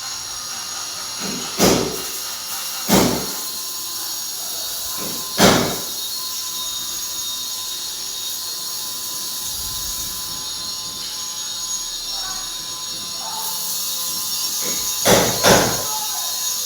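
Steady hiss of water running through newly fitted plumbing under test, broken by five sharp knocks: three in the first six seconds and two close together near the end.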